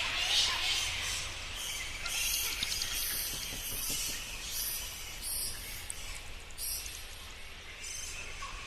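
Horror sound effect: an eerie ambience of high, insect-like chirring and hissing in choppy stretches over a low steady rumble.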